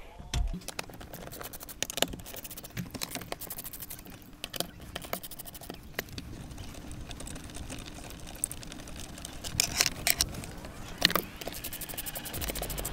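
Socket ratchet clicking in short runs as the 12 mm bolts holding the shift assembly are backed out, with scattered knocks and clinks of the tool and the loose bolts and a few louder clicks late on.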